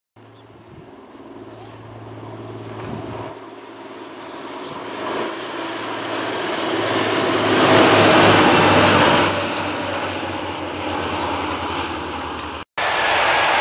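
TransPennine Express Class 185 diesel multiple unit passing at speed: a steady engine hum and the rush of its wheels on the rails, growing louder to a peak about eight seconds in, with a thin high whine above. The sound cuts off abruptly near the end and another train's noise starts.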